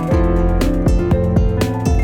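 Instrumental background music: plucked guitar notes over a steady beat.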